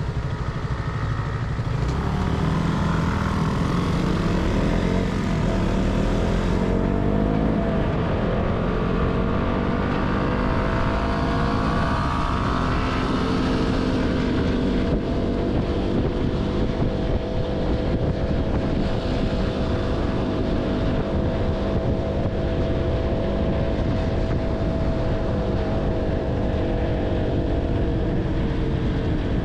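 KTM Duke 200 single-cylinder motorcycle engine running under way. Its pitch climbs over the first few seconds as it accelerates, holds steady at cruising speed, and eases off slightly near the end, over a constant rush of road and wind noise.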